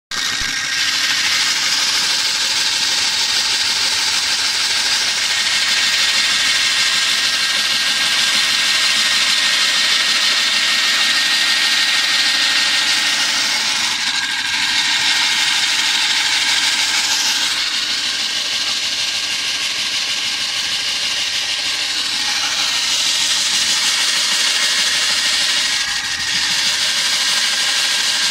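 Electric diamond core drill on a stand-mounted rig, its core bit spinning and cutting into concrete: a continuous loud motor whine with a grinding hiss, shifting slightly in tone now and then.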